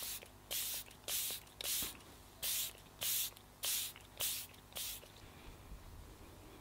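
Pump bottle of Tarte Stay Spray setting spray misting in quick hissing spritzes, about nine in a row at roughly two a second, stopping about five seconds in.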